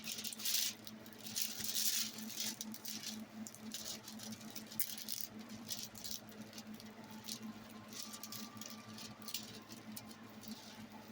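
Rustling and crinkling of a diamond painting canvas being handled and pressed flat by hand to straighten a crease, in irregular scratchy bursts that are busiest in the first few seconds, over a faint steady hum.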